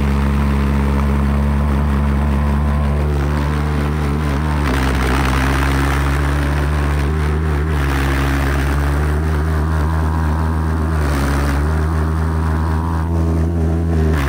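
Jet engine of a home-built jet-powered four-wheeler running under way, a loud, steady low droning buzz whose pitch shifts slightly a few times.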